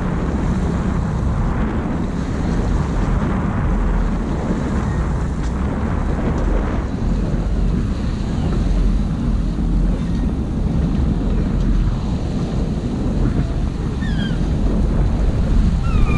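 Sailboat under sail: water rushing past the hull and bow wave, with wind buffeting the microphone, a steady noise. A few short, falling high chirps near the end.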